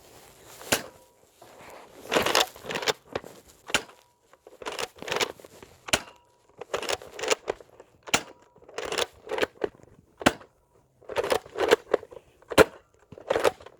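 Bolt-action Nerf blaster being worked and fired over and over: a short rattling pull of the bolt, then a sharp snap of the shot, about every two seconds, six or so times.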